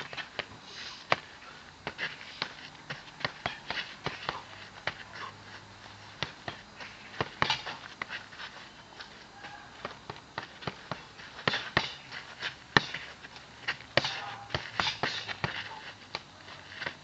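Punches landing on a hanging heavy bag, sharp slaps and thuds at irregular spacing, some in quick combinations, with a busier flurry near the end. Short sharp breaths come in among the punches.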